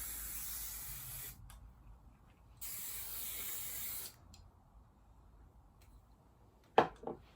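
Hairspray sprayed onto crimped hair in two long hisses, each lasting about one and a half seconds, with a pause between them. A short, loud thud comes near the end.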